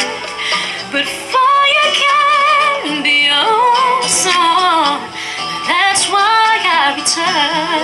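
Woman singing solo in a powerful belting voice: long melismatic runs that slide up and down in pitch, with wide vibrato on the held notes and short breaths about a second in and around five seconds.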